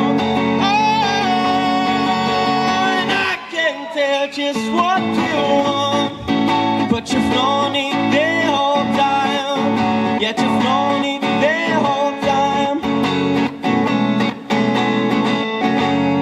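Music: a guitar-backed song with a lead melody line that bends up and down in pitch.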